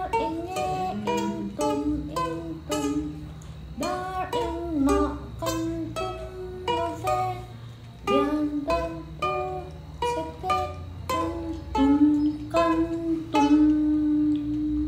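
Ukulele being strummed, playing a tune in a regular rhythm of chords.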